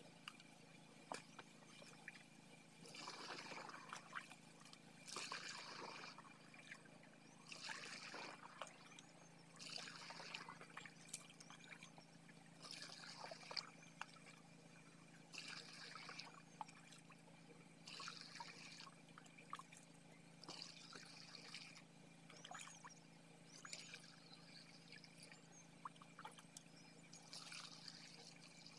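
Faint splashing of liquid being poured from a plastic jug into the tank of a backpack sprayer, in short pours of about a second that repeat every two to three seconds.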